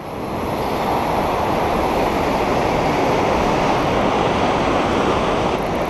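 Heavy surf breaking and washing over the rocks of a sea wall: a steady rush of white water that swells over the first second and then holds.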